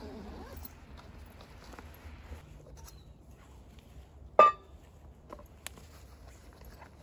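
A metal camping cup set down on a wooden plank bench: one sharp knock with a brief metallic ring about four seconds in, amid soft rustling of a backpack being unpacked.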